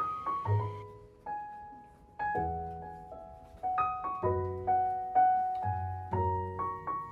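Background piano music: a gentle melody of single struck notes over soft bass notes, each note fading after it is played.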